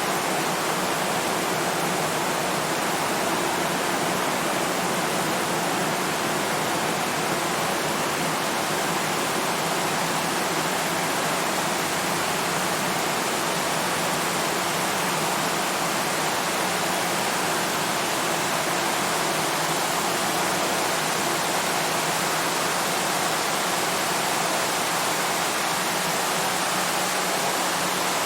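Rain falling steadily on a tin roof: an even, dense hiss with no separate drops standing out.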